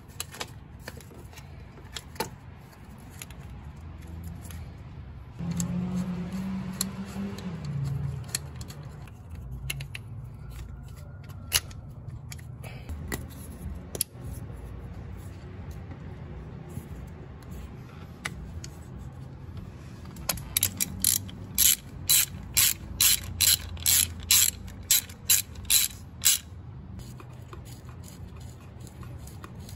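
Hand ratchet wrench clicking, with scattered tool clicks and knocks and a brief low hum about six seconds in; the loudest part is a steady run of about a dozen ratchet strokes, roughly two a second, starting about twenty seconds in.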